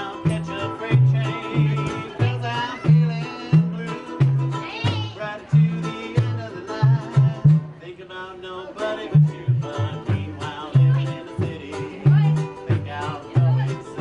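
Live old-time string-band music: a banjo strummed over a plucked washtub bass, which lays down a steady bouncing bass line, with a wavering lead melody on top.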